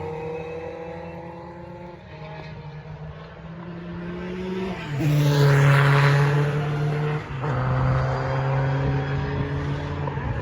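Historic Formula 2 racing cars running at high revs, their engine notes climbing as they accelerate. One car passes close about five seconds in, which is the loudest point, and its note drops sharply a couple of seconds later at a gear change before climbing again.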